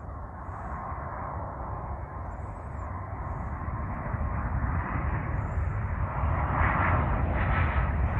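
Airbus A319 jetliner on final approach with its landing gear down, the rumble and rush of its jet engines growing steadily louder as it comes closer, with a thin engine whine coming in near the end.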